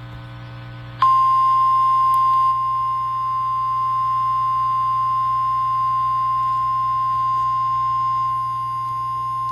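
NOAA Weather Radio warning alarm tone: a single steady high-pitched beep that starts abruptly about a second in and holds, announcing a severe thunderstorm warning. A low steady hum runs underneath.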